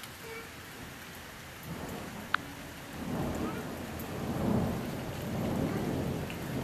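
Rolling thunder that swells in a couple of seconds in, peaks past the middle and keeps rumbling, over a steady hiss of rain. One sharp click is heard a little over two seconds in.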